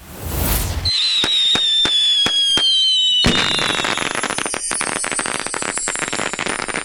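Fireworks sound effect: a brief whoosh, then a falling whistle with sharp cracks about three a second, breaking about three seconds in into dense crackling that tails off near the end.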